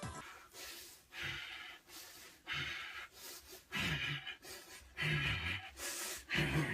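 A person panting heavily, a loud breath about once a second, some breaths voiced into short grunts and growing louder toward the end: exertion breathing recorded in a studio to be dubbed over a film scene.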